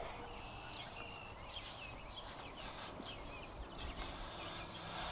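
Birds chirping and singing, many short high chirps scattered throughout, over a steady low rumble.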